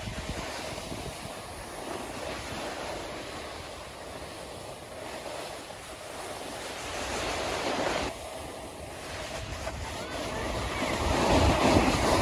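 Wind rushing over the microphone, with a steady hiss of snow scraping under a snowboard sliding downhill. It grows louder near the end.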